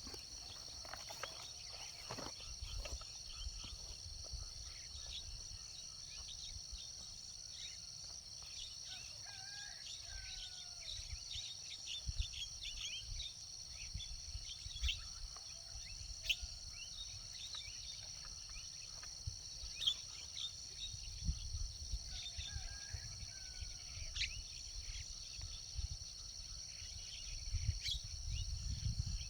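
A steady, high-pitched drone of insects, crickets or cicadas, with scattered short chirps and a few brief bird calls that slide up and down, about ten seconds in and again around twenty-two seconds.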